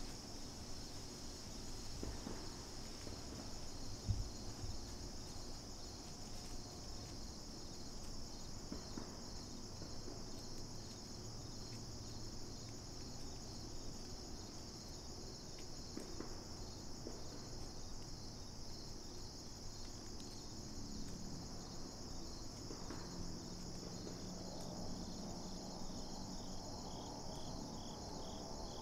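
Steady chorus of insects singing in a continuous high trill, with a second insect calling in rapid even pulses a little lower in pitch, clearer near the end. One brief low thump about four seconds in.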